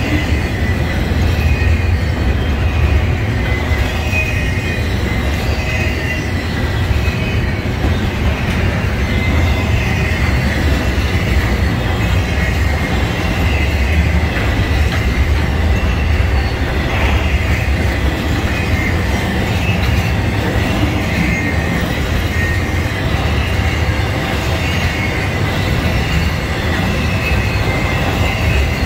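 Intermodal freight train's cars rolling past: a steady rumble of steel wheels on rail, with a thin, wavering high squeal from the wheels.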